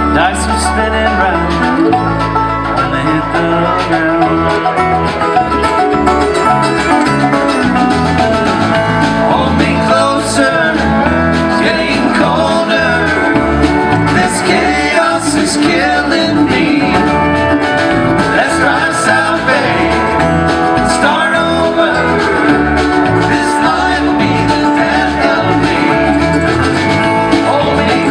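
Live bluegrass band playing, with banjo and acoustic guitar over a bass line.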